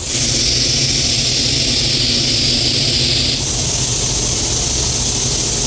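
TIG welding arc buzzing and hissing steadily; a high hiss in it drops away about three and a half seconds in while the low buzz carries on.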